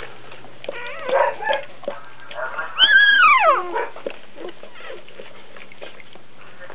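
Newborn Doberman puppy crying: a few short squeaky cries about a second in, then one loud squeal about three seconds in that rises briefly and falls away.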